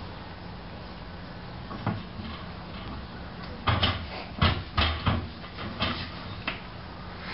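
A pygmy hippo's weight against a barred metal gate makes it knock and rattle: a single knock about two seconds in, then a run of about seven clanks over the next three seconds as the animal rears up onto the gate.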